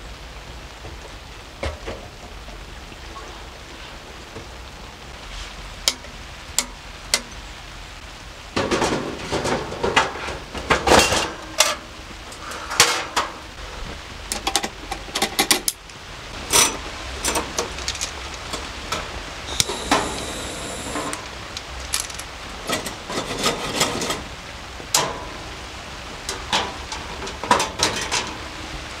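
Steady hiss of rain, then from about eight seconds in a dense run of clinks, clicks and metallic clatter from metal camping gear being handled and set up, easing to scattered knocks.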